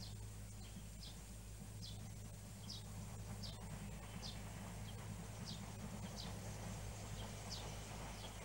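A bird calling over and over with short, high notes that slide downward, about one every three-quarters of a second, over a faint steady low hum.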